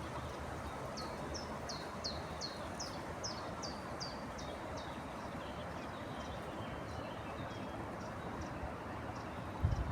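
A bird calling: a quick series of short, high, downward-sliding notes, about three a second, strongest for a few seconds and then fainter, over a steady rushing noise. A low thump near the end.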